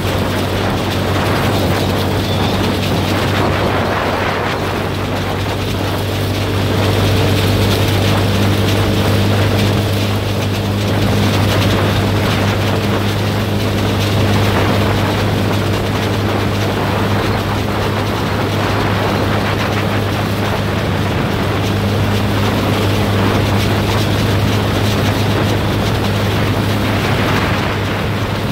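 An engine running at a steady speed, a constant drone with a low hum, with wind buffeting the microphone.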